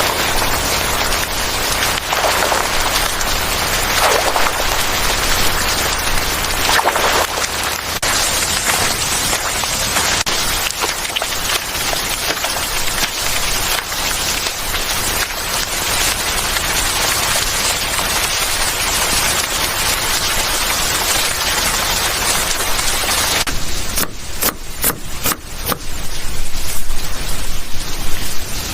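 Steady rain falling, a dense even hiss. About 23 seconds in it changes to a thinner sound broken by sharp, louder taps and spatters.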